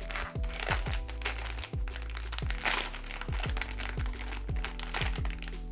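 Plastic blind-box packaging crinkling and rustling in handling, loudest about halfway through, over background music with a steady beat.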